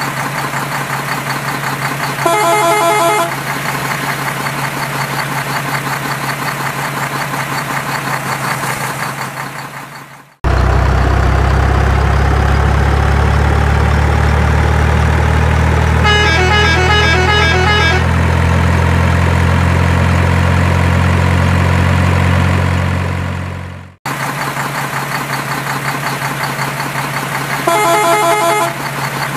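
Dubbed truck sound effects: a truck engine running steadily, with a horn sounding for about a second a couple of seconds in. It cuts abruptly to a louder, heavier engine whose pitch rises slowly, with a two-second pulsing horn blast midway, then cuts back to the first engine with another short honk near the end.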